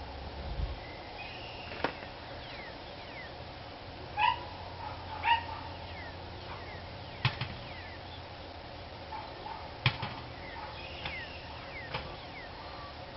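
A dog barking twice, about a second apart, among small bird chirps and a few sharp clicks.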